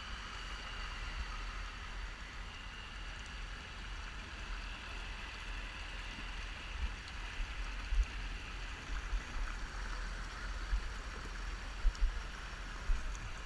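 Floodwater sloshing and gurgling around a GoPro moving through a flooded street, with a few sharp bumps in the second half.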